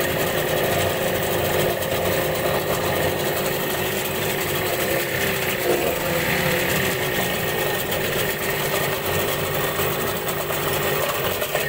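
ALLFA CG 9.8 hp outboard motor idling steadily with its lower unit in a test tank of water; the idle speed is a little high.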